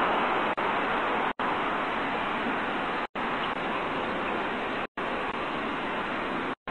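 Steady, even hiss of recording noise, broken by four brief dead silences about every second and three quarters.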